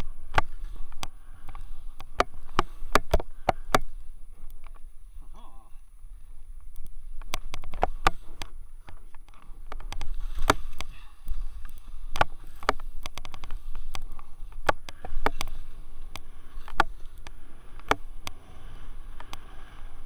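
Skis sliding and turning through snow, a continuous rushing hiss with a low rumble on the microphone. Frequent sharp clicks and knocks come at irregular intervals throughout.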